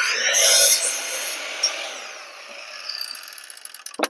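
Power miter saw cutting through a small block of lumber, loudest in the first second as the blade goes through the wood. The blade then spins down with a light rattle before cutting off suddenly near the end.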